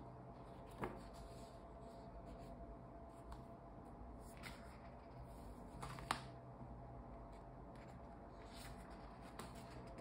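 Sketchbook pages being handled and turned: quiet paper rustles, with a sharp click about a second in and a louder one about six seconds in.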